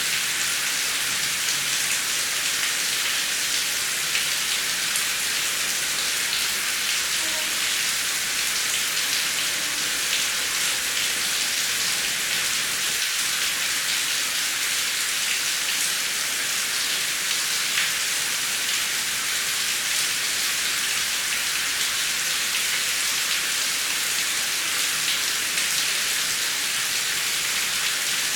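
Heavy rain falling steadily, a dense even hiss of countless drops with no thunder.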